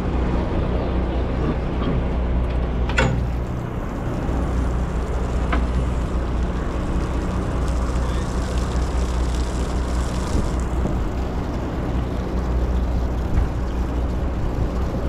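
A sportfishing boat's engine running with a steady low drone, with a short sharp sound about three seconds in.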